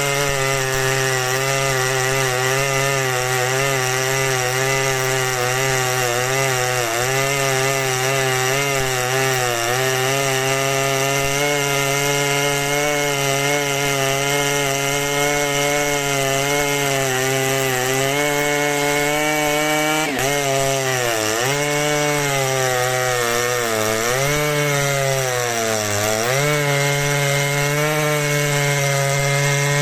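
Large professional chainsaw running at full throttle while cutting into a big oak trunk, the engine note held high and steady. In the last third the pitch sags three times and recovers as the chain bogs under load in the cut.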